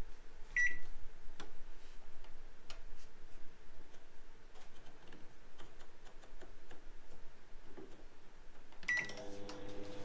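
Samsung MS28F303TAS microwave oven's control panel beeps once as a button is pressed, then light clicks follow as its control dial is turned to set the time. Near the end it beeps again and the oven starts cooking, running with a steady hum.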